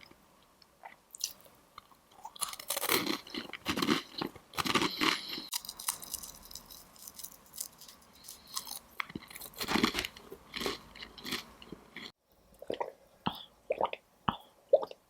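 Crisp fried Chinese pastries being bitten and chewed close to the microphone: loud crunching in bursts, with quieter, smaller crunches after a sudden break about twelve seconds in.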